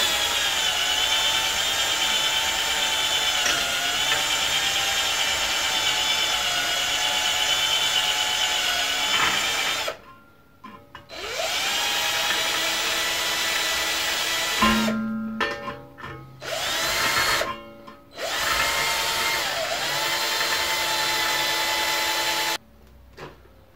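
Cordless drill on low speed turning a small pointed die-grinding burr, grinding out a drilled hole in sheet steel. It runs steadily for about ten seconds, its whine sagging a little in pitch under load, then stops and restarts in several shorter runs, each starting with a rising whine as the motor spins up.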